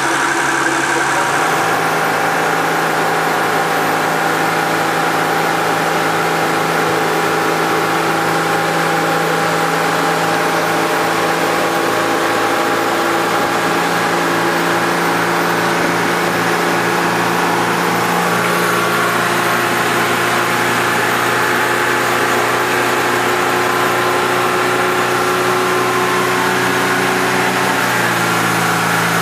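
Mercedes-Benz OM603 inline-six diesel with a Holset turbo running steadily as the boat cruises, its engine speed shifting slightly a few times.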